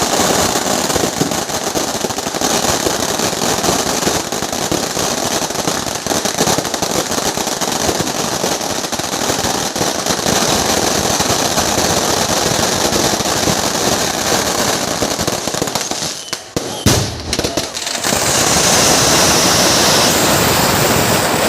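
Firecrackers going off in a fast, continuous crackle, many small bangs running together. The crackle drops away briefly about 16 s in, and a steadier hiss takes over about 18 s in.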